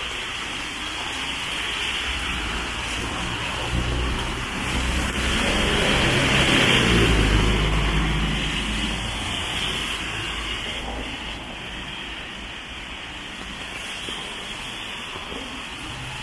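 Steady rain falling on the street and sidewalk. A city bus drives past on the wet road, its engine rumble and tyre noise rising to a peak about halfway through, then fading away.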